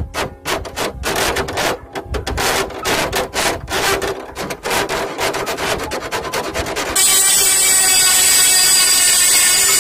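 A round metal file rasped back and forth in rhythmic strokes against the steel edge of a hole cut in a car hood. About seven seconds in, the filing gives way to a handheld rotary grinding tool starting up and grinding the hole's edge with a steady high whine.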